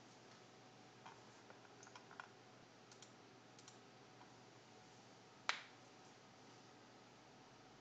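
Near silence, broken by a few faint scattered clicks in the first few seconds and one sharper single click about five and a half seconds in.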